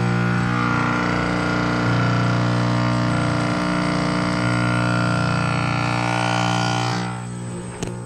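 Carrier heat pump outdoor unit running in heat mode: a steady, loud hum from the compressor with the rush of the outdoor fan. About seven seconds in the airy part of the sound drops away and the hum gets quieter, followed by a single sharp click.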